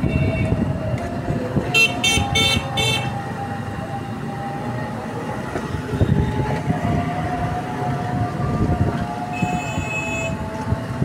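Road traffic running steadily with vehicle horns honking: a quick run of short toots about two seconds in and a longer honk near the end.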